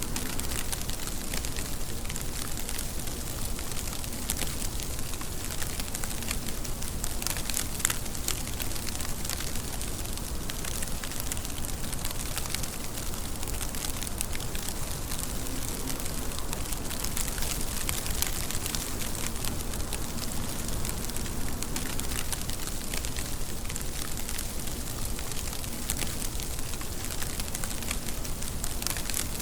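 Steady rain falling, with a dense patter of individual drops ticking over an even hiss.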